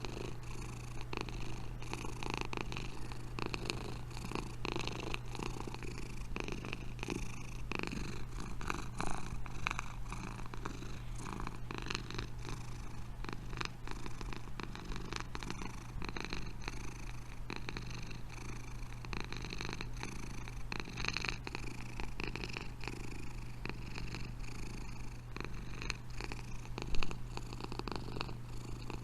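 Domestic cat purring steadily and close up, a continuous fast low rumble, with a brief louder knock near the end.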